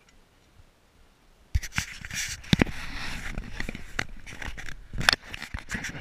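Close rustling and scraping of clothing and gear against the worn camera, with irregular knocks and clicks, starting suddenly about a second and a half in after a quiet opening.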